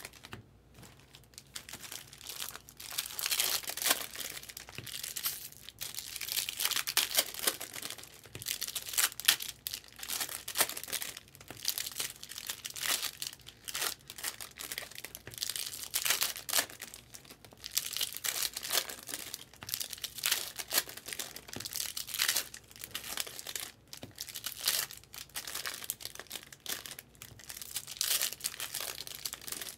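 Foil-wrapped Topps Chrome baseball card packs being torn open one after another, the wrappers crinkling and tearing in quick repeated bursts.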